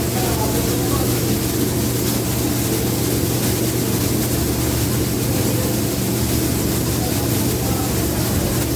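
Conveyor-type commercial dishwasher running steadily: a constant motor hum under the rushing hiss of its water spray. It is on a test run to see whether it cuts out by itself after a few minutes, the fault the customer reported.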